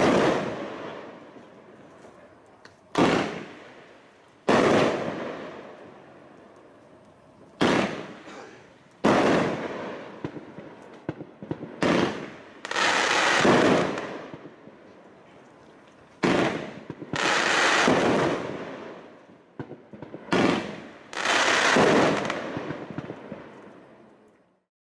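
SFX Fireworks 'Escape Velocity' consumer fireworks cake firing its fan-shaped volleys: a run of sharp bangs as the shells burst, each trailing off over a second or two, with clusters of shots every few seconds. The sound dies away near the end.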